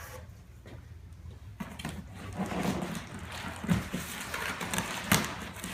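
A large foam packing pad being handled and flipped over in a cardboard shipping box: rubbing and scraping noises with two sharp knocks in the second half.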